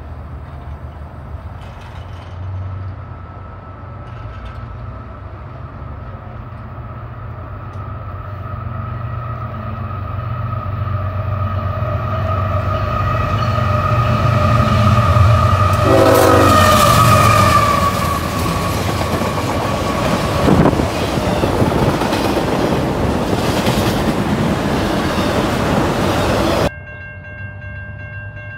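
Diesel freight train approaching and passing, its locomotive engine rumbling and its horn sounding a long held chord that grows louder and drops in pitch as the locomotive goes by. Then the cars roll past with loud rail rumble and clatter. The sound cuts off suddenly near the end.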